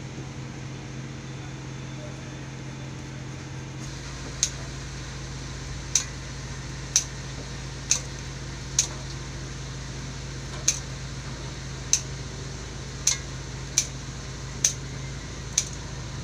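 Kitchen scissors snipping red chili peppers into a cooking pot: about a dozen short, sharp snips, roughly one a second, starting about four seconds in, over a steady low mechanical hum.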